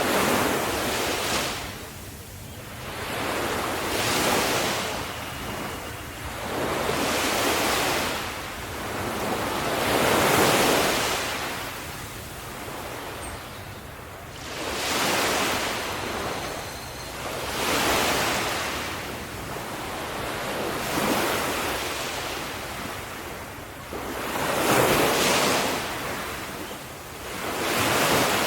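Ocean waves breaking and washing up on the shore, the surf rising and falling in a slow rhythm of about one swell every three to four seconds, around nine in all.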